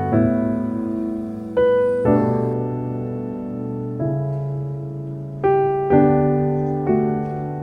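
Background music: slow piano chords, each struck and left to ring out, a new chord every one to two seconds.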